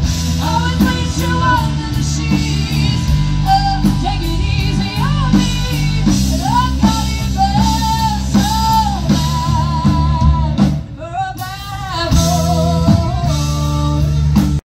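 A rock band playing live: a singer over guitar, bass and drum kit, with a brief drop in the music about eleven seconds in. The music cuts off suddenly just before the end.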